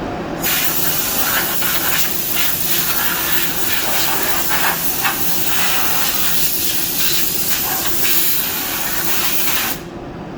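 Powder coating spray gun blowing powder on compressed air: a steady hiss that starts about half a second in and cuts off sharply near the end, over a steady low hum.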